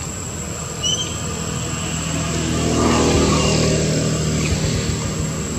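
A motor vehicle's engine running nearby, swelling to its loudest about three seconds in and then easing off as it passes, with two short high chirps about a second in.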